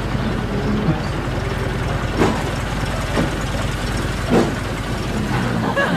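Vehicle engine idling steadily, with a few short knocks, then starting to rev up in rising pitch near the end.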